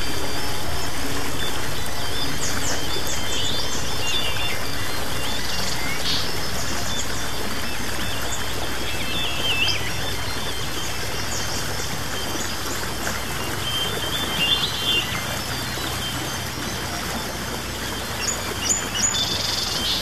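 Birds chirping and calling, with short high chirps every few seconds, over a steady hiss and a low held drone from soft music, in a layered nature-sound ambience that slowly fades.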